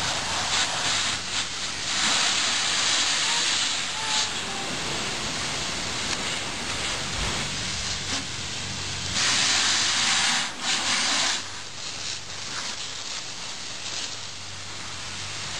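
Water hissing from a garden hose spraying onto a car during washing. It gets louder for a couple of seconds about two seconds in, and again around ten seconds in.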